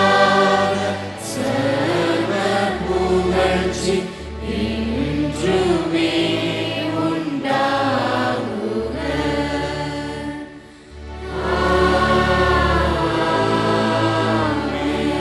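Church choir singing a slow hymn over instrumental accompaniment with sustained bass notes, with a brief pause between phrases just past the middle.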